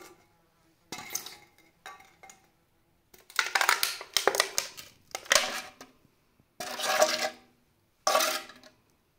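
Aluminium drink can being crushed under a heavy platform shoe sole on a tile floor: about six separate crinkling, crackling crunches of thin metal with short pauses between them, a cluster of them near the middle, as the can buckles flat.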